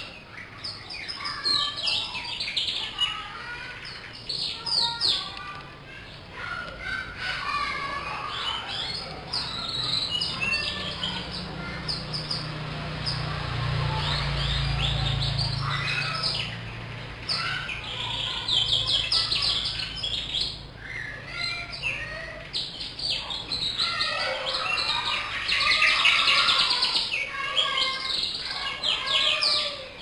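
Domestic canary singing continuously in full song, a long run of fast trills, rolls and sharp chirps. A low rumble sits underneath for a few seconds midway, and the song is at its loudest and densest near the end.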